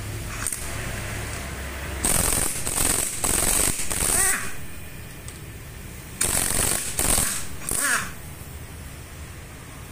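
Pneumatic impact wrench hammering on the cylinder head bolts of a Toyota Corolla AE112 1.8 engine, loosening them in two bursts of about two seconds each.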